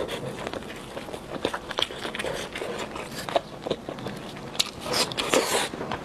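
Plastic-gloved hands tearing apart a whole steamed chicken on aluminium foil: wet squelching and ripping of skin and meat mixed with the foil crinkling, in many small clicks and crackles, with a louder rustling stretch near the end.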